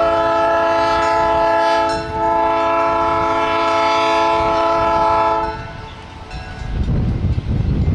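Diesel switcher locomotive's air horn sounding two long blasts. The first ends about two seconds in and the second lasts about three seconds, several steady tones together. After the horn stops, a low rumble follows near the end.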